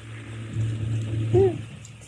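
A single short voiced sound from a person, rising then falling in pitch, about one and a half seconds in, over a steady low hum.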